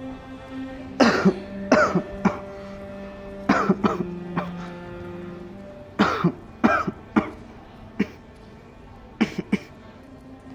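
A man coughing in short, harsh fits of two to four coughs. Soft background music with sustained notes plays under the coughs.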